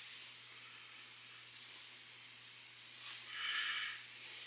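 A person sniffing deeply through the nose about three seconds in, smelling a candle's lid for its scent, over a faint steady room hum.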